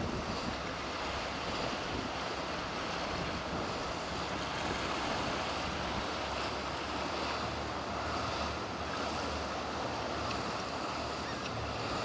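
Steady wash of wind and surf from the waves in the inlet, with wind buffeting the microphone.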